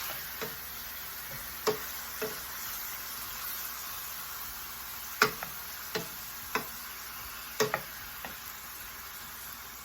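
Mushrooms sizzling steadily in olive oil and butter in a frying pan, with a utensil clicking against the pan about eight times as they are stirred.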